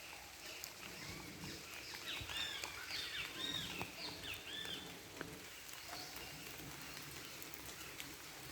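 A bird calling: a quick series of short arched chirps, each rising and falling in pitch, loudest in the middle of the stretch, with scattered faint clicks around them.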